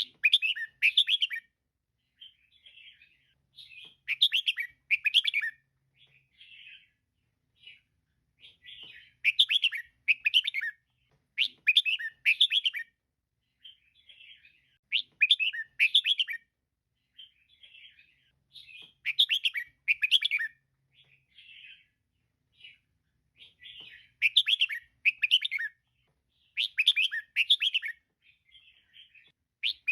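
Female red-whiskered bulbul calling: loud bursts of quick chirping notes every two to four seconds, with softer chatter in between.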